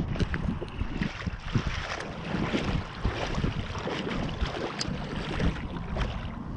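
Wind buffeting the microphone, a steady rumble with scattered small clicks and taps.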